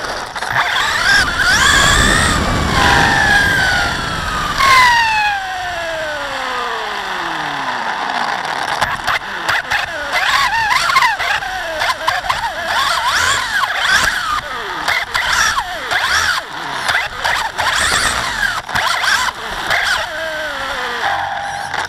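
HPI Blitz radio-controlled truck's electric motor and drivetrain whining, heard from on board the car. The whine rises and falls in pitch with the throttle: a long falling glide as it slows early on, then quick bursts of acceleration and braking. A rough tyre rumble on asphalt runs under the first few seconds.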